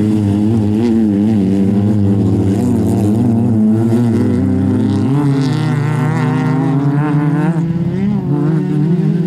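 Peugeot 106 racing hatchback's engine running at high revs on loose dirt, the pitch wavering up and down constantly as the revs change under throttle, with a second racing car's engine close by. The revs climb steadily around the middle and drop off sharply about seven and a half seconds in.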